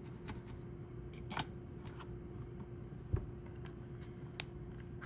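Light clicks and small taps of handling a soldering iron and wires on a workbench, with one low thump about three seconds in, over a steady faint hum.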